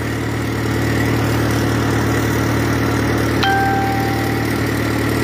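Car engine idling steadily, running to drive the alternator that powers a homemade electrolysis cell.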